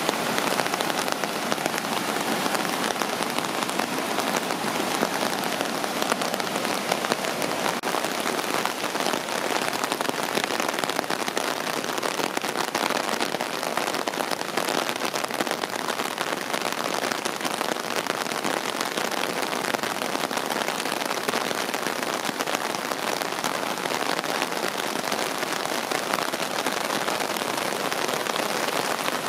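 Heavy rain falling steadily, mixed with the rush of a flood-swollen creek; an even, unbroken hiss with no single loud event.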